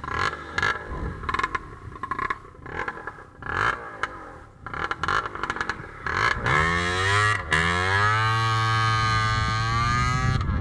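Honda CBR900RR Fireblade inline-four engine accelerating hard under way. Its pitch rises, dips once at a gear change, climbs again and then holds high. This follows several seconds of uneven, choppy riding noise.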